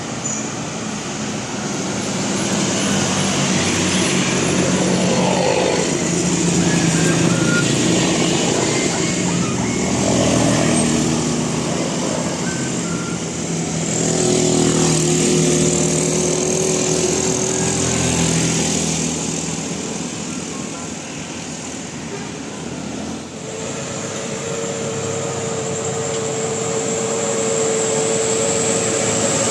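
Road traffic: buses driving past, with engine and tyre noise swelling and fading as they go by, and voices underneath. A steady held tone starts near the end.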